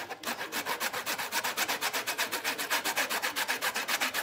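Horseradish root being rubbed quickly up and down a stainless steel box grater, a scraping rasp in an even rhythm of about seven strokes a second.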